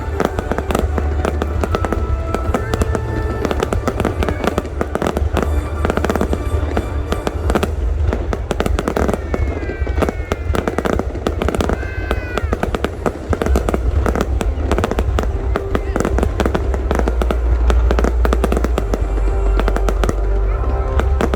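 Fireworks display: a continuous rapid barrage of bangs and crackles, with a few falling whistles about halfway through, over music.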